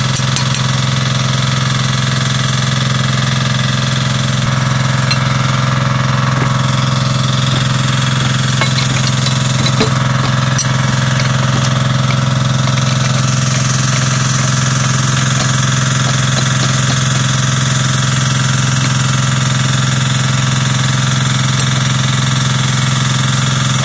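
An engine running steadily at an even idle, with a couple of faint clicks about ten seconds in.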